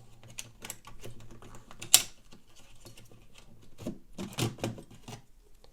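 Irregular small clicks and taps of hands working the hard disk out of a Dell Inspiron 1018 netbook, with one sharper click about two seconds in and a quick run of clicks near the end.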